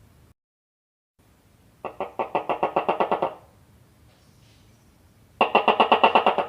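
Gecko calling: two runs of rapid chirping clicks, about nine a second, the second run louder.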